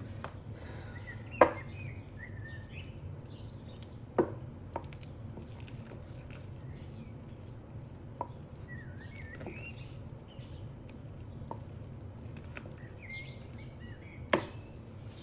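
Wooden spoon knocking against the rim and side of a ceramic bowl while stirring a thick cream cheese mixture, with about six knocks, three of them sharp and loud. Birds chirp faintly in the background over a steady low hum.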